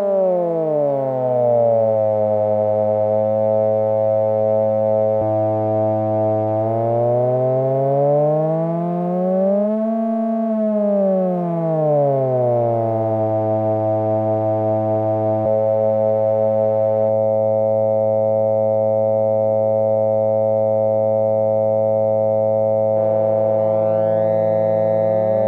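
MFOS Weird Sound Generator synth module droning with several oscillator tones at once, their pitch swept by hand on the knobs. The tones glide down at the start, swoop up and back down about ten seconds in, then hold a steady chord whose upper tones shift now and then, and slide upward again near the end.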